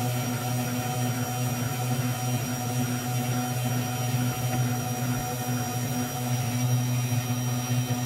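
Desktop CNC 3018 Pro router's 775 spindle motor running steadily while its end mill engraves lettering into a clear plastic sheet: a steady hum with a haze of hiss.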